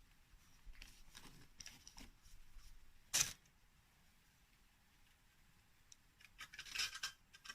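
Faint handling noises of small metal engine parts and tools: scattered light clicks, one sharp metallic click about three seconds in, and a short run of clicks and rattles near the end.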